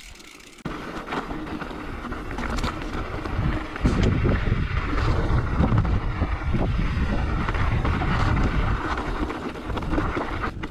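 Mountain bike riding down a rocky trail: tyres rumbling and clattering over loose stones, with wind buffeting the microphone. It starts about a second in and grows louder over the next few seconds.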